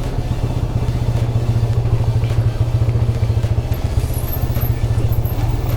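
Single-cylinder TVS Apache motorcycle engine running steadily at low revs in first gear, holding the bike back on a rough downhill trail, with scattered light clatter.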